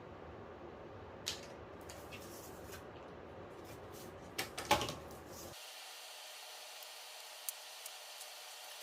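Light clicks and taps of TV backlight parts being handled during disassembly, with a short cluster of louder knocks about four and a half seconds in. The low background rumble cuts off suddenly a little past halfway, leaving only faint scattered ticks.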